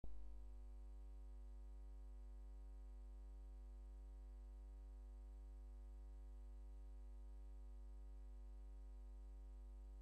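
Steady electrical hum, low and unchanging, with a faint buzz of higher overtones above it.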